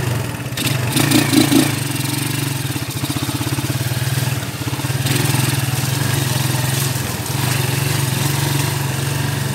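Vehicle engine running steadily under way on a rough dirt road, briefly louder about a second in.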